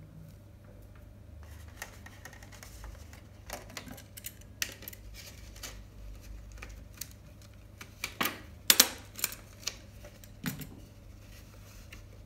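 A handheld stapler clicking and snapping shut several times as it is squeezed to staple pipe-cleaner whiskers onto a paper plate, with lighter clicks and handling before. The loudest snaps come about two-thirds of the way through.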